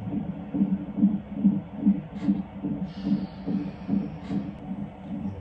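Fetal heart rate monitor playing the baby's heartbeat as a steady run of soft whooshing pulses, a little over two beats a second. Two faint clicks come through midway.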